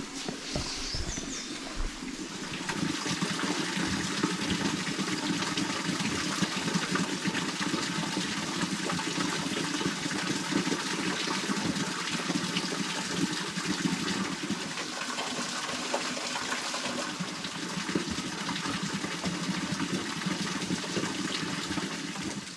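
Water running or splashing steadily with a continuous rushing noise.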